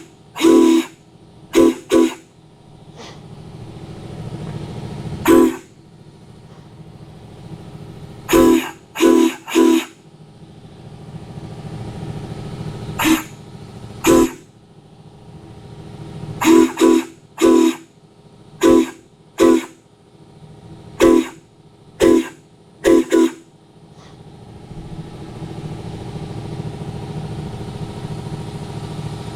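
3D-printed six-chime Santa Fe steam whistle blown on compressed air in about fifteen short toots, mostly in quick groups of two or three, each a chord of several notes. Under and after the toots runs a low steady hum, likely the air compressor motor, growing louder and carrying on alone for the last few seconds.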